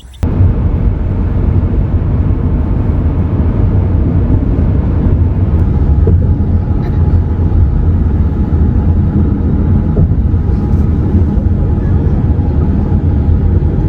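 Steady low rumble of a car on the road, with road and engine noise heard from inside the moving vehicle.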